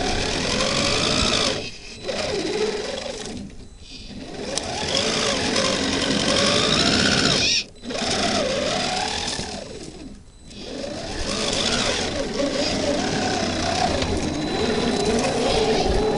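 Electric motors and geared drivetrains of 1/10-scale RC crawler trucks with Land Rover Defender 90 bodies whining as they climb a dirt slope, the pitch rising and falling with the throttle. The sound drops away briefly about four times as the throttle is eased off.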